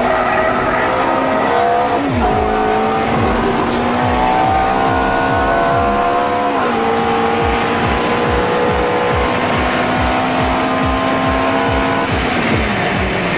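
Ferrari F430's V8 pulling hard, its pitch climbing steadily and then dropping sharply at upshifts about 2 seconds in, near 7 seconds and again near the end.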